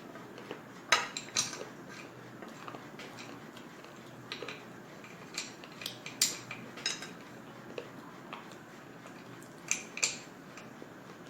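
Hard slate pencil pieces cracking sharply as they are bitten off and crunched, in about eight short crisp snaps, several in close pairs, over a faint steady background.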